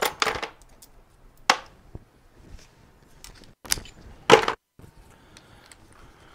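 Tools and parts being handled: four separate sharp clacks, like a cordless drill and hard parts being knocked and set down, the loudest a little past four seconds in.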